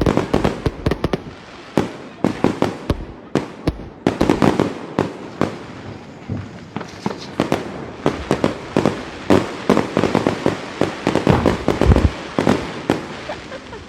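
Firecrackers going off: many sharp, irregular bangs and crackling pops, thickest and loudest about four seconds in and again near the end.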